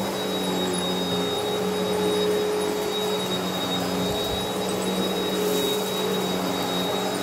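Bagless upright vacuum cleaner running while it is pushed over carpet: a steady motor hum with a thin high whine over the rush of air.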